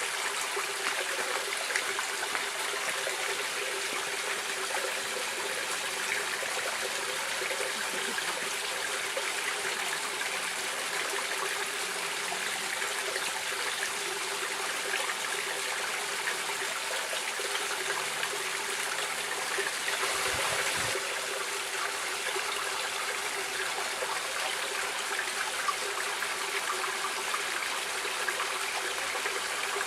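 Stream water running and babbling steadily, swelling briefly louder about two-thirds of the way through.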